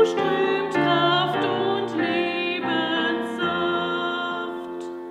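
Woman singing a hymn with Yamaha digital piano accompaniment; the last phrase ends about three and a half seconds in, and the final chord is held and fades away.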